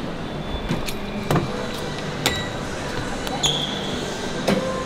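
Gym room noise with a few sharp metallic clicks and clanks from weight-machine equipment.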